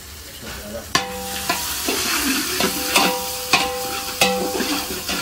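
A metal ladle stirring sliced onions and whole dry spices frying in ghee in a large metal pot. Sharp scrapes and knocks, about two a second, set the pot ringing over a sizzle that grows louder about a second in.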